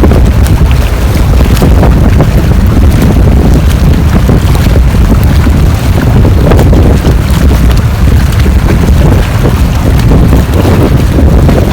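Heavy wind buffeting the microphone: a loud, continuous low rumble with gusty crackles throughout.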